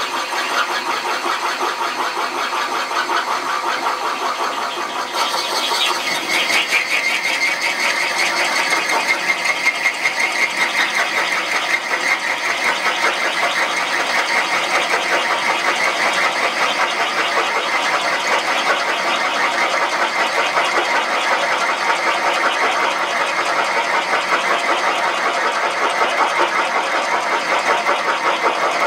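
Valve-guide cutting tool spinning in a Serdi head machine, cutting the new guide and cast-iron guide boss of a Pontiac 455 cylinder head at the same time: a steady metal-cutting noise with a fast, even chatter. About five seconds in it gets louder and brighter as the cutter bites into the iron boss.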